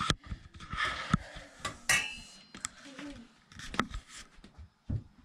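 Kitchen utensils and pots clattering: a run of knocks and clinks, one of them ringing briefly about two seconds in.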